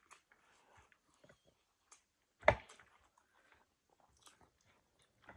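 Chewing and small wet mouth sounds of people eating with their hands, with scattered faint clicks. One sharp knock stands out, much the loudest sound, about two and a half seconds in.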